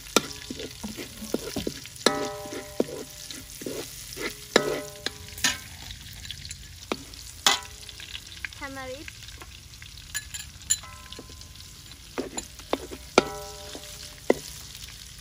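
A metal spatula stirs and scrapes garlic and red chili frying in oil in a stainless steel wok, over a light sizzle. Several sharp clangs come where the spatula strikes the wok, each followed by a brief metallic ring.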